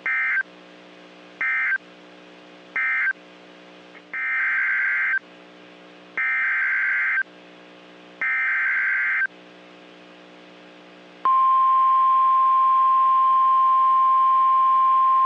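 NOAA Weather Radio Emergency Alert System data bursts. First come three short squawks, the end-of-message code closing the previous warning. Three longer digital bursts follow, the SAME header announcing the next warning, then about 11 seconds in the steady 1050 Hz warning alarm tone begins.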